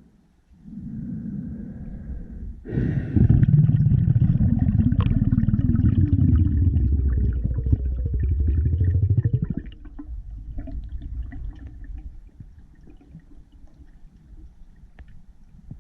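Heavy low rumble with rapid pulsing, picked up underwater. It starts suddenly about three seconds in and stops about nine and a half seconds in, leaving faint scattered clicks.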